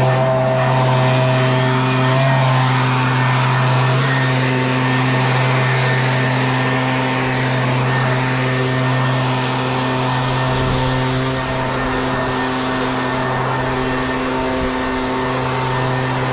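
Gas backpack leaf blower engine running steadily at an even speed, its hum and airflow rush unchanged throughout.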